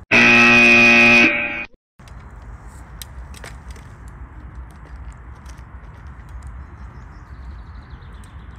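A loud, harsh 'wrong answer' buzzer sound effect lasting just over a second, marking a failed attempt, then cut off abruptly. After that comes faint outdoor ambience with a few light clicks.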